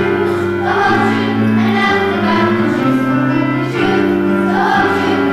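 A choir singing a song, with held notes that change about every second.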